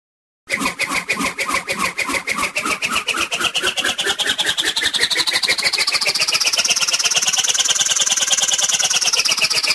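Cartoon swoosh sound effect that starts suddenly about half a second in: a rapid flutter with a whistling tone that slowly rises in pitch and starts to fall near the end.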